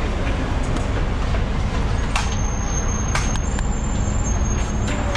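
Electric rail car running, heard from inside the passenger cabin: a steady low rumble, with two sharp knocks about two and three seconds in and a faint high whine over the second half.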